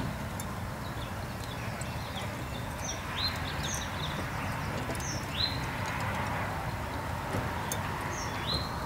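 Wind rumbling on the microphone, with birds chirping repeatedly in short, rising chirps.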